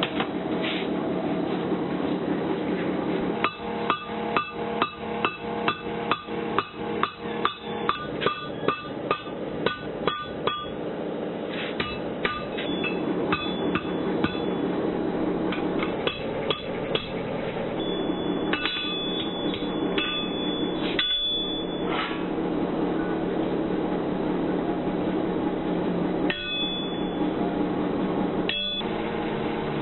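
Blacksmith's hammer striking hot iron on an anvil: a steady run of blows about two a second from a few seconds in until about ten seconds, then scattered single strikes with a ringing clink. A steady hum runs underneath.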